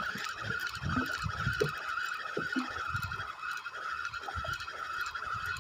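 Choppy sea water slapping irregularly against a small wooden boat's hull, with wind buffeting the microphone and a steady high hum over it.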